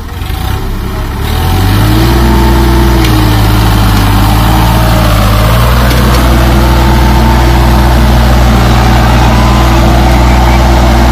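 Sonalika DI 42 tractor's diesel engine revving up about a second and a half in, then running hard and steady under load as it hauls a loaded earth trolley through deep mud.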